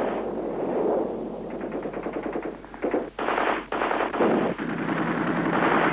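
Machine-gun fire in rapid bursts of closely spaced shots, heaviest around the middle, over a continuous din of battle noise.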